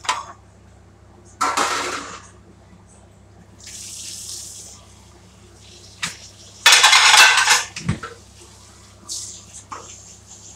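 Kitchen tap water running into a sink in several short bursts, the longest and loudest about seven seconds in, with a few knocks and clinks of dishes between.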